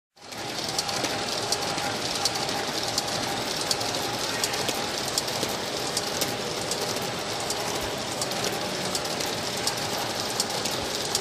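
Petratto Mini Metro folder gluer running: a steady mechanical clatter from its belts and rollers, with a faint steady hum and many quick irregular clicks. It fades in just after the start.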